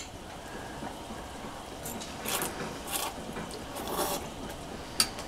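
Quiet sounds of eating spaghetti from a glass bowl with a fork: a sharp clink of the fork at the start and again near the end, with a few short, soft, hissy mouth noises between them as the forkful is taken and chewed.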